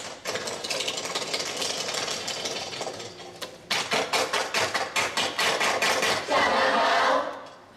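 Rapid percussive knocking and striking, several hits a second, with a loud sustained rushing noise near the end that fades away.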